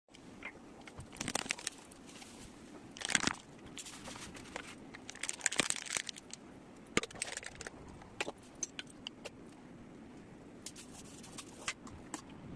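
Kitchen handling sounds: scattered clinks, clicks and short rattles of utensils and dishes, over a steady low background hum.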